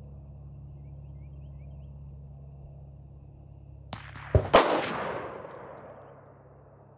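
A single shot from an AR-15 pistol with a micro-length gas system, firing a .223 handload (Hornady 75-grain hollow point over H-4198). About four seconds in comes a sharp crack, then the loudest peak a quarter second later, and a rumble that dies away over about a second and a half.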